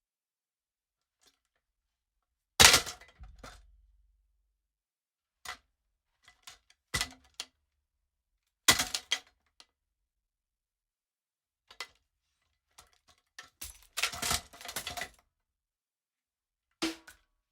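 Kick-pedal crash sound-effect layer: a series of separate knocks and clattering crashes with silence between them. The loudest is about two and a half seconds in and has a low thump under it, and there are denser clusters of rattles near the middle and two-thirds of the way through.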